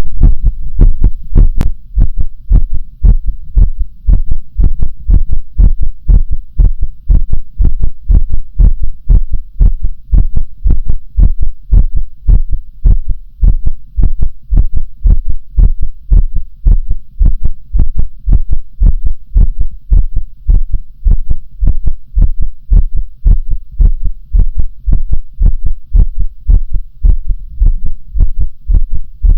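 A human heartbeat, recorded close up: steady, evenly spaced beats, each a deep low thud. There is a single faint sharp click about a second and a half in.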